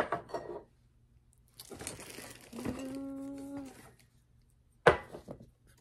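Crinkling and rustling of packaging as bottles are pulled out of a box, with a click at the start and a sharp knock about five seconds in. A brief steady hummed note sounds in the middle.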